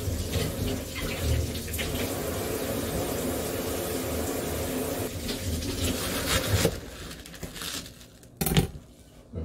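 Kitchen tap running steadily with light handling clatter, stopping about two-thirds of the way through. Near the end comes a sharp knife chop on the cutting board, the loudest sound, and then a lighter one.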